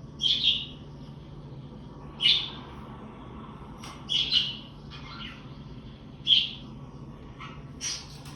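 Parakeet (budgerigar) chirping: short single chirps about every two seconds, over a steady low hum.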